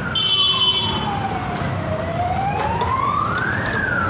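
A wailing siren, its pitch rising and falling slowly, about one full cycle every three to four seconds. A short high beep sounds near the start.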